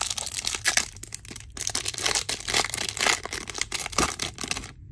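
Foil trading-card pack wrapper being torn open and crinkled, with cards being handled. The crackling and tearing runs almost without a break, then stops just before the end.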